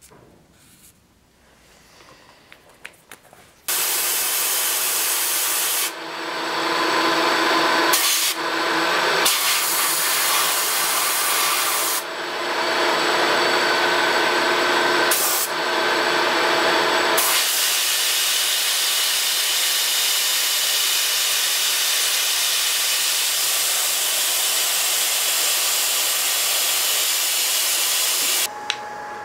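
Faint handling clicks, then a small end mill in a milling machine spindle cuts a slot into a hardwood knife-handle scale with a loud, steady hiss, easing briefly a few times as the cut changes. It cuts off sharply about a second before the end.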